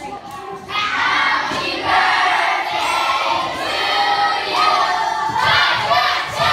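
A group of children singing together in unison, holding long notes.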